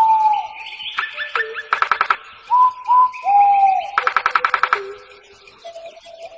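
Birds calling: short whistled notes that drop in pitch at the end, with a fast buzzy rattle twice, about two seconds in and again about four seconds in.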